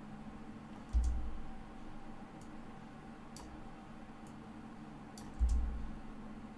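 Computer mouse clicking several times, faint and irregular, with two dull low thumps, one about a second in and one near the end, over a faint steady hum.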